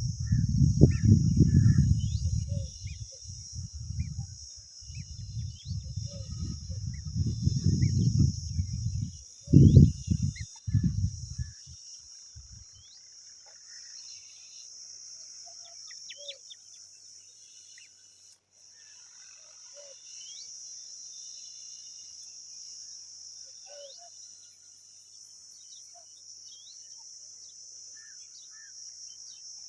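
Scattered short, rising bird chirps over a steady high-pitched drone, with loud low rumbling noise on the microphone that stops about twelve seconds in.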